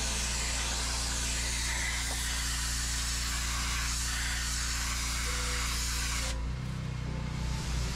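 Pressure washer lance spraying a high-pressure water jet onto concrete, a steady hiss over a low constant hum. The spray cuts off about six seconds in, leaving only the hum.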